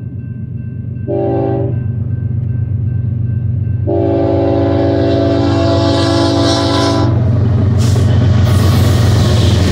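Horn of a BNSF freight train's lead locomotive, a GE ES44DC diesel-electric: one short blast about a second in, then a long blast from about four to seven seconds, over the low rumble of the approaching diesel locomotives, which grows louder. Near the end the locomotives pass close by with a loud rush of engine and wheel noise.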